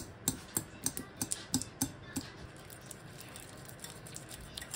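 Wire whisk clicking and scraping against a glass mixing bowl while beating butter, about three or four sharp clicks a second at first, then quicker, fainter strokes from about two seconds in.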